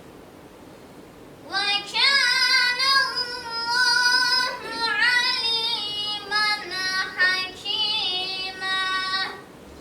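A child's unaccompanied solo voice in melodic Quran recitation. After a pause of about a second and a half, it chants one long phrase of held, ornamented notes that ends near the end.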